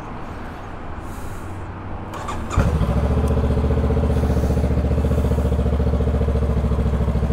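Honda Rebel 500's 471 cc parallel-twin starting about two and a half seconds in, then idling steadily with an even low pulse.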